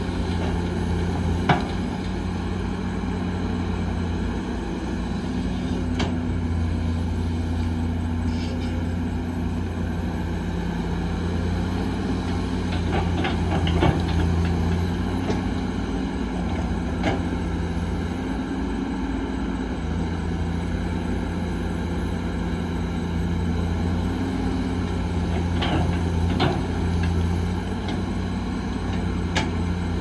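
Diesel engine of heavy earthmoving machinery running steadily, its note rising and falling a little with load, with a few sharp metallic knocks scattered through it.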